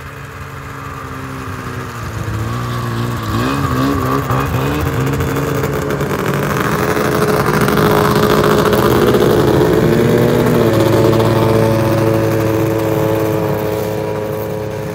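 Ski-Doo snowmobiles' two-stroke engines running close by. They rev up and down for a few seconds and grow louder to a peak about halfway, then settle into a steadier note that eases off near the end.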